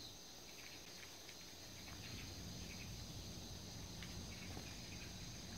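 Faint outdoor background of crickets chirring steadily at a high pitch, with a few faint small clicks scattered through it.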